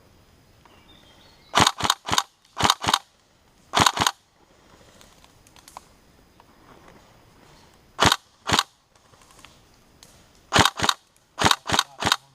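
Airsoft electric rifle firing sharp single shots in quick clusters of two to four, with pauses of one to four seconds between clusters.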